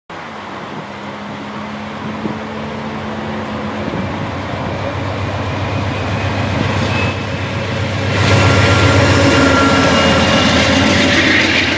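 A train approaching and running past, its rumble growing steadily louder and loudest from about eight seconds in.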